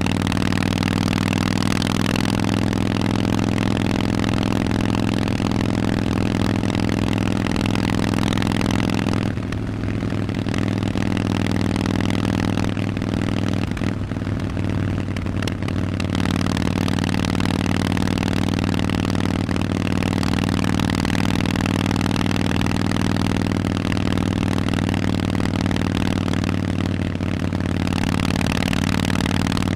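Harley-Davidson Forty-Eight's air-cooled V-twin running through Vance & Hines exhausts at a steady engine speed. It eases off for several seconds about a third of the way in, then picks back up.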